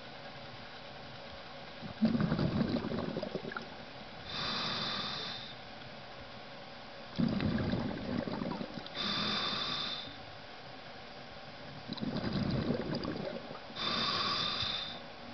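Scuba diver breathing underwater through a regulator: three breaths about five seconds apart, each a gurgle of exhaled bubbles followed by a steady hiss of air drawn in on the inhale.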